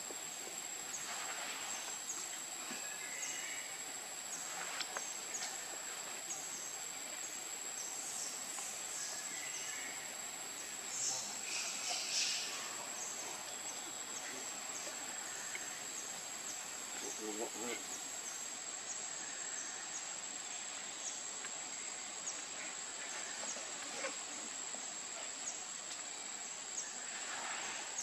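Steady high-pitched drone of insects in forest, a constant thin tone over a hiss. A few faint brief sounds come through it a little before halfway, and a short pitched call a little past halfway.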